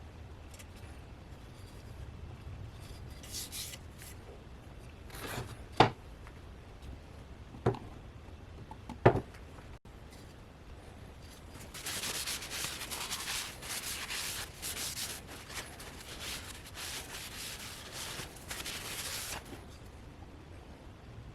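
Three sharp knocks, about one to two seconds apart, then about seven seconds of hand rubbing in short, uneven strokes, typical of sanding or polishing work on the restored cleaver.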